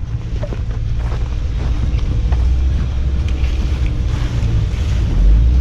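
Subaru Forester's 2.5-litre flat-four engine pulling hard as the car drives through deep snow, its low rumble growing louder, with scattered light clicks and crunches and wind noise on the microphone.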